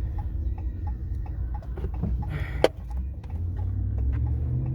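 Car interior road noise, a steady low rumble that rises slightly in the second half, with faint even ticking about three times a second and one sharp click about two and a half seconds in.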